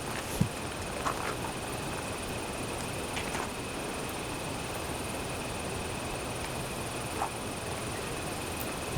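Steady rushing water of a mountain stream, with a constant high-pitched whine over it and a few light knocks.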